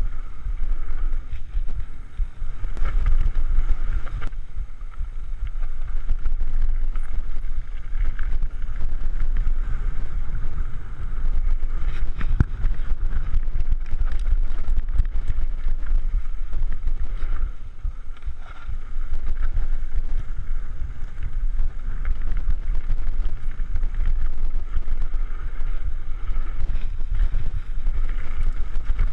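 Mountain bike descending a rough gravel trail: steady wind rumble on the body-mounted action camera's microphone, with the rattle and knocks of tyres and bike frame over loose ground.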